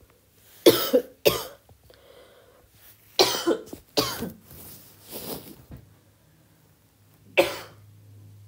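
A woman coughing in several bouts of short, harsh coughs, the last a single cough about seven and a half seconds in. She is unwell.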